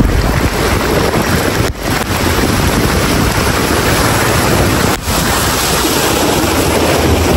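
A car ploughing through deep floodwater: a loud, steady rush and splash of water thrown up by the tyres, with wind on the microphone. The sound drops briefly twice.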